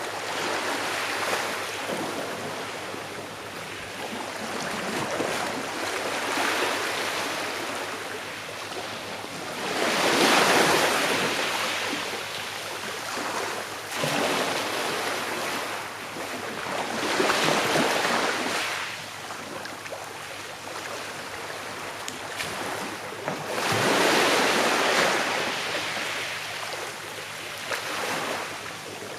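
Sea waves washing onto a shore, the surf swelling and falling away in slow surges every six or seven seconds, with smaller swells between.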